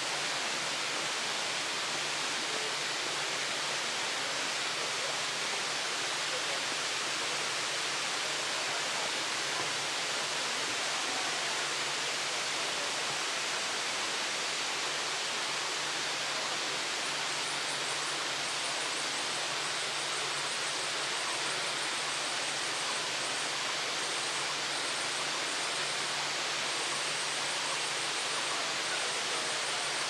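Steady rushing of the Kuang Si waterfall's cascading water, an even hiss that does not change. From about halfway, a faint, rapid high ticking comes and goes above it.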